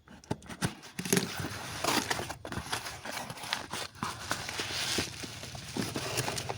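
Phone packaging handled by hand: irregular rustling and crinkling with many small clicks and taps.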